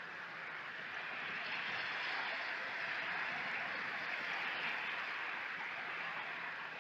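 Sea waves washing onto the shore: a steady hiss of surf that swells from about a second in and eases off near the end.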